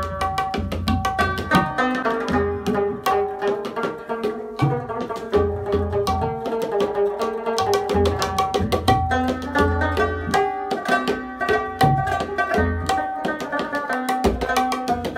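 Tabla and rubab played live together: quick, sharp tabla strokes with recurring deep booms from the bass drum, under a plucked rubab melody.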